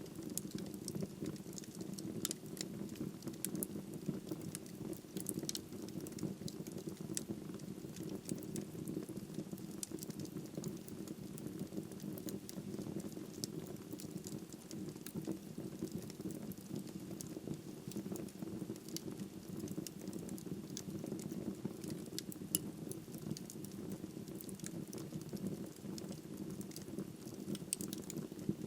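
Wood fire burning in a fireplace: a steady low rush of flame with frequent sharp crackles and pops from the burning logs.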